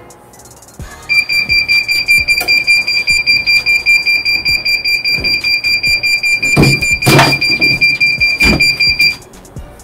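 Heat press timer alarm beeping rapidly in one high tone, signalling that the press time is up; it stops about nine seconds in. A few knocks of the press handle being gripped and worked come near the end.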